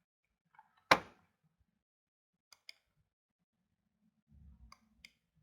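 One sharp click or knock about a second in, followed by a few faint ticks and a brief low rumble near the end, in an otherwise quiet room.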